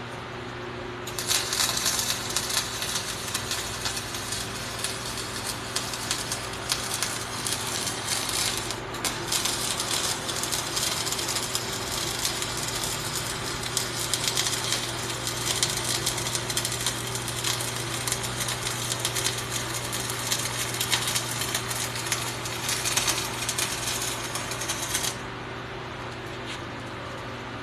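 Flux-core wire-feed welding arc crackling steadily for about 24 seconds, with a brief break about nine seconds in, as a gap in the joint is filled. A steady low hum runs underneath.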